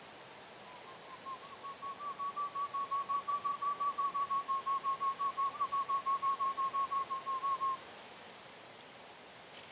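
A fast run of whistled uru (spot-winged wood-quail) call notes on one steady pitch, about six a second. It builds up over the first couple of seconds, holds, then stops abruptly near the end.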